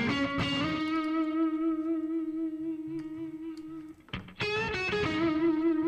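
Soloed lead electric guitar (a PRS) recorded straight from the guitarist's pedalboard with no amp and no mix processing, playing a solo. One note slides up and is held with wavering vibrato for about four seconds, breaks off briefly, then a second note is held.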